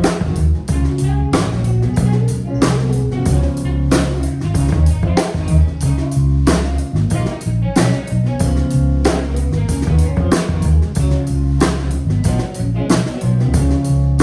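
Band music with guitar over a drum kit's steady beat.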